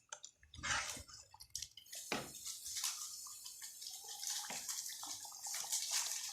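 Chicken and spices frying in a pot, a steady sizzle, with a few short scraping strokes as it is stirred. The cooking liquid has boiled off, so the chicken is dry-frying in its oil.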